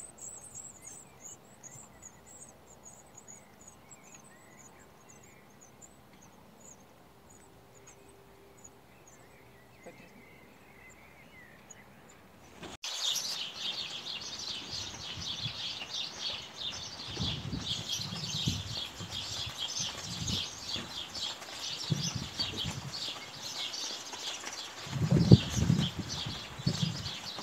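Blue tit nestlings begging for food inside a wooden nest box: thin, very high rapid calls, faint and dying away at first, then a dense, continuous chorus of rapid high calls from about halfway through. Low thumps sound under the calls, the loudest near the end.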